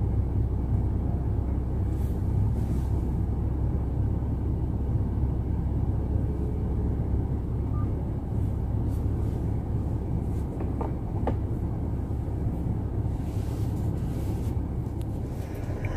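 Steady low rumble of a car's engine and tyres inside the cabin while driving slowly.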